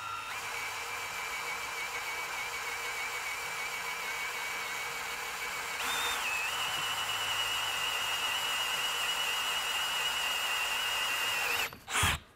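Power drill boring a 3/8-inch spade bit into a wooden board: a steady whine that steps up in pitch about six seconds in as the drill speeds up. It stops near the end with a brief loud burst as the spinning bit is pulled out of the hole.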